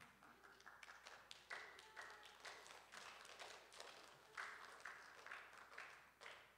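Faint, scattered light clapping from a small group, irregular and uneven.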